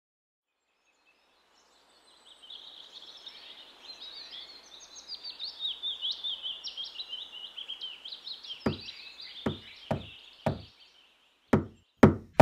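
Knocking on a door: four knocks, a short pause, then three louder knocks near the end. Under the first knocks runs a bed of high chirping that fades out just before the last three.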